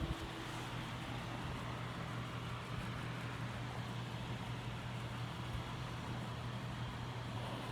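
Lasko window fan running steadily: an even rush of air with a low motor hum.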